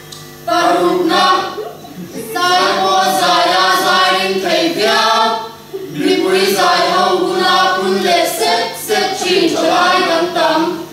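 Mixed group of young women and men reciting in unison, the words chanted on held, sung pitches. The phrases run a few seconds each, with short breaks between them.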